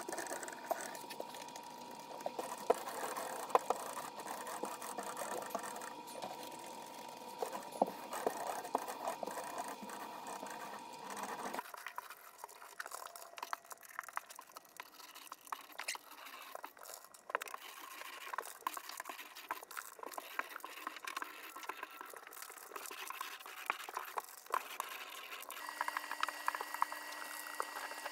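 Faint, sped-up work sounds from house painting: busy small scratches, clicks and taps over a low room hum. The sound changes abruptly about twelve seconds in and again near the end.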